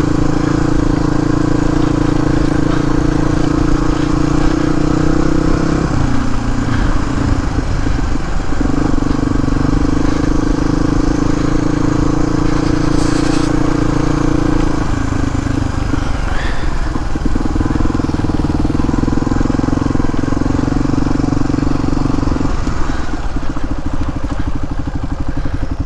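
Suzuki DR250S single-cylinder four-stroke trail bike running through a Dominator aftermarket exhaust while being ridden, the note held steady and then breaking up as the throttle comes off, three times: about six, fifteen and twenty-three seconds in.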